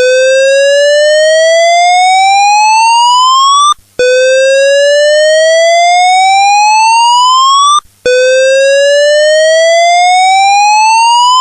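Australian EWIS evacuation tone: a loud whoop that rises steadily in pitch over about four seconds, breaks off for a moment and starts again low, three times. This whoop is the building's evacuation signal, the one that alternates with the recorded "evacuate" voice message.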